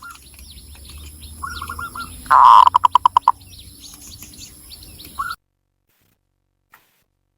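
Zebra dove (perkutut) cooing: a soft phrase, then a loud coo that breaks into a fast stuttering trill. Small birds chirp thinly in the background, and the sound cuts off abruptly a little over five seconds in.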